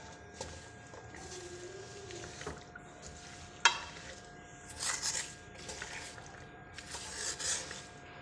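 Wooden spoon stirring diced carrots in a metal pan, scraping and rustling through the vegetables, with one sharp knock of the spoon against the pan about three and a half seconds in.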